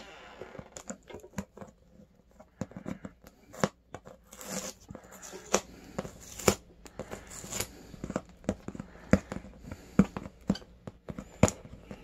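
Crinkling and tearing noises from the plastic wrap on a shrink-wrapped cardboard shipping box, with many scattered sharp taps and clicks and a couple of longer rustles.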